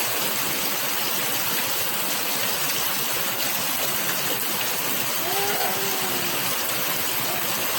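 Steady rain falling, a constant even hiss. A faint voice sounds briefly about five seconds in.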